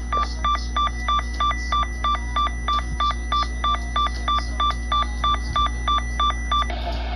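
Rapid electronic alert tones over a weather radio receiver, an even pattern of about three to four pulses a second, that cut off abruptly near the end, leaving radio hiss.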